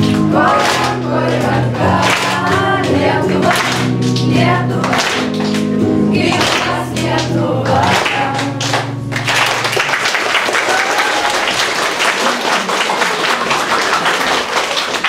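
A group of teenagers sings in unison over an electric guitar; the song ends about nine seconds in, and applause follows.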